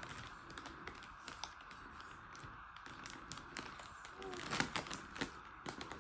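Faint crinkling and small clicks of a plastic chips packet being handled and picked at by a small child's fingers, with a brief faint voice about four seconds in.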